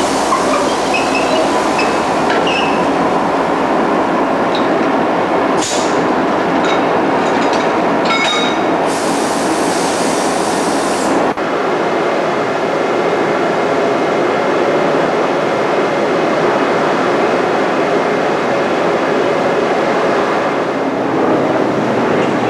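Loud, steady railway noise. First a DB Class 360 diesel shunting locomotive runs close by, with scattered short squeals and clicks and a hiss about nine to eleven seconds in. After a sudden change just past halfway, a DB Class 110 electric locomotive runs light over the station tracks with a steady running noise.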